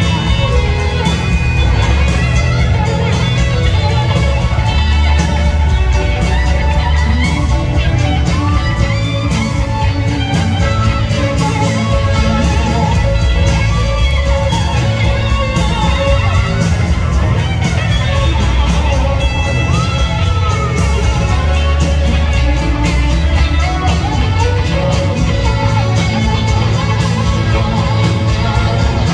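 Live rock band playing at full volume, with an electric slide-guitar solo on a Gibson SG on top: sustained notes that glide up and down in pitch over a steady bass and drums.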